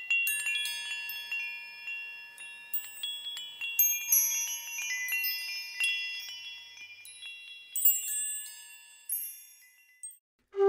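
Wind chimes ringing: many high, bell-like tones struck at random and left to fade, thinning out and dying away near the end.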